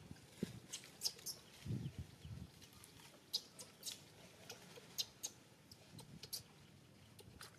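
Faint, short, high squeaks from a newborn pigtail macaque, scattered irregularly, with soft rustling from the mother's handling.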